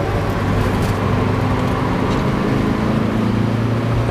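Daihatsu Xenia 1.3's four-cylinder engine running steadily under way, heard from inside the cabin as an even low hum mixed with tyre and road noise.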